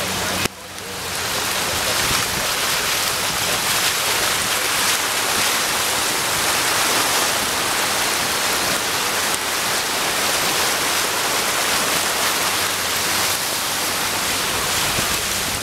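Steady, loud rush of water from flooding in heavy rain, with a brief break about half a second in.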